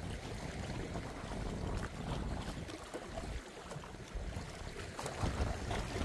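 Sea waves washing, with wind buffeting the microphone as a low rumble that grows a little stronger near the end.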